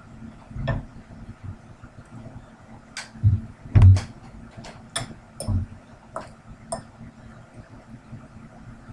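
A fork clinking and scraping against a bowl while eating, a dozen or so sharp clinks scattered mostly between about three and seven seconds in, with a few dull knocks, the loudest near four seconds in.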